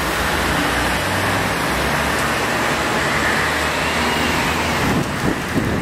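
Street traffic: a motor vehicle's engine hum under steady road noise.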